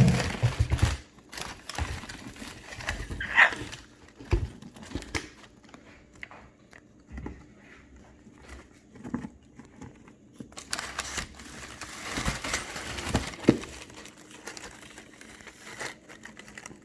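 A pet bird pulling at a paper-stuffed foraging toy with its beak: scattered crinkling, tearing and clicking of paper.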